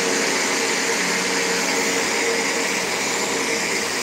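A steady, even rushing hiss of background noise with a faint low hum under it, no speech.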